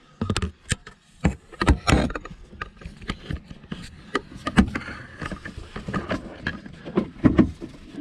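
Handling noise: irregular knocks, clicks and rubbing as the camera is shifted about and gloved hands reach behind the toilet to its plastic water-supply fitting. The loudest knocks come in the first two seconds and near the end.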